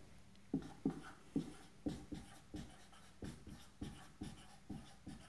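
Dry-erase marker writing on a whiteboard: a faint string of short, separate marker strokes, roughly two or three a second.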